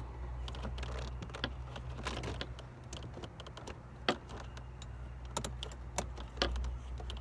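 Irregular small metallic clicks and taps of a hand tool tightening a car side mirror's mounting screws, over a steady low hum.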